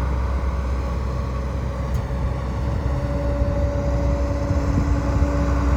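Kobelco SK210LC-9 excavator's Hino diesel engine running steadily while the machine works. A steady whine joins in about three seconds in.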